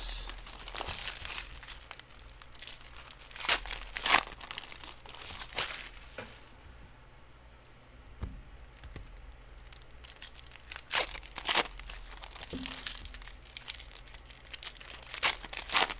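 Plastic wrapping on trading-card boxes and packs being crinkled and torn open, in irregular bursts with a quieter pause in the middle.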